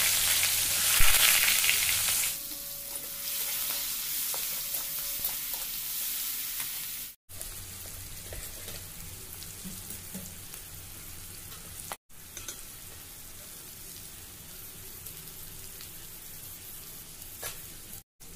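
Food frying in hot oil in a pan: a loud sizzle for about the first two seconds, then a quieter, steady sizzle with a few light knocks, broken three times by a brief drop-out.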